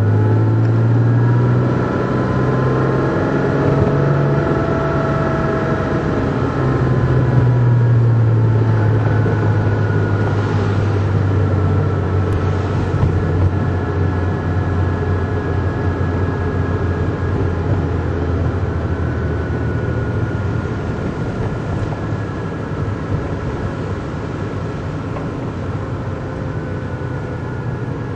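Porsche Cayman S flat-six engine heard from inside the cabin, running at moderate revs. Its pitch steps up and down a few times in the first eight seconds, then settles into a lower, steadier drone that grows gradually quieter as the car slows.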